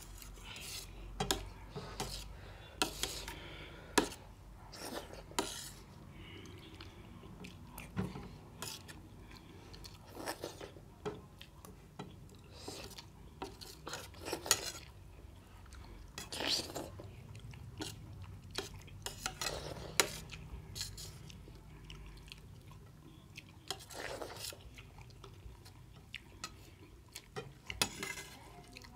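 Metal spoon scraping and clinking on a stainless steel plate at irregular intervals, with chewing of milk-soaked rice between the clinks.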